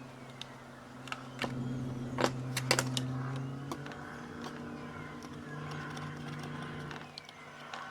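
A steady low hum that shifts slightly in pitch partway through, with scattered sharp clicks and light clinks.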